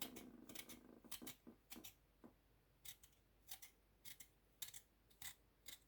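Knife point gouging eyes and blemishes out of a raw potato: a faint string of short, sharp cutting clicks, irregularly spaced, about one or two a second.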